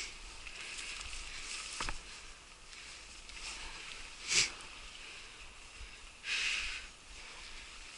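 Rustling and scuffing of footsteps through grass over rounded boulders. There is a sharp knock about two seconds in, a short hiss a little after four seconds, and a longer hiss of about half a second near six and a half seconds.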